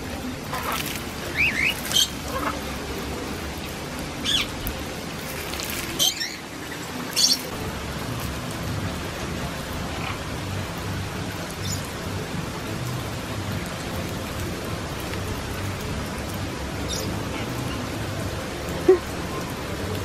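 Parrots giving short, shrill squawks, several in the first seven seconds and one more near the end, over a steady hiss of background noise.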